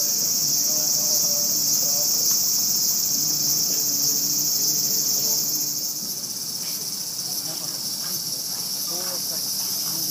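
A loud, steady, high-pitched chorus of insects shrilling in the trees, which shifts a little and eases slightly about six seconds in.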